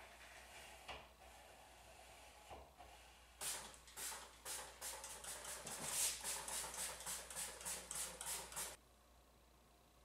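A quick, regular run of scraping strokes, about three a second, lasting some five seconds and then stopping abruptly, preceded by a few faint clicks.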